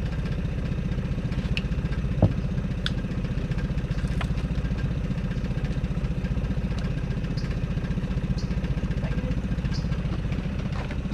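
Boat's outboard motor idling steadily, a low even rumble. A single sharp knock sounds a little over two seconds in, with a few faint clicks scattered after it.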